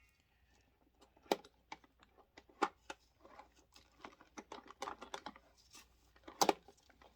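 Irregular plastic clicks and taps as a SodaStream Fizzi and its bottle are handled, with a few sharper knocks among many faint ones.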